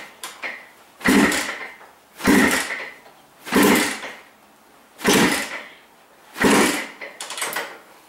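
Kawasaki KDX200 two-stroke single-cylinder dirt bike being kick-started: about six kicks, roughly one every second and a half. Each kick is a short clunk of the lever as the engine turns over, and the engine does not catch and run.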